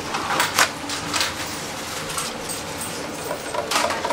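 Food-prep handling sounds: a few short clicks and rustles from metal tongs and a paper towel being torn off a roll, over the steady hiss of oil bubbling in a deep fryer.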